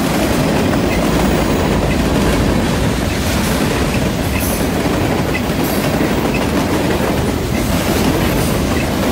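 Steel wheels of a freight train's covered hoppers and tank cars rolling past at close range: a steady, loud rumble with repeated clicks of the wheels over the rail.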